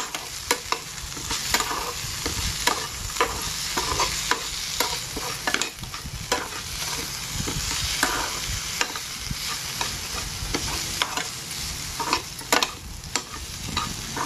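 A spatula stirring vegetables and moong dal frying in a pan, with frequent irregular clicks and scrapes against the pan over a steady sizzle.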